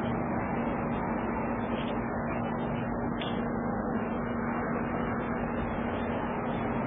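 Steady background noise with a constant low hum; no meowing or other distinct events.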